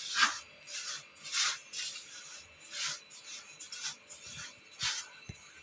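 A dry mix of semolina and flour being stirred in a bowl: repeated scraping swishes, about two a second, with a couple of light knocks near the end.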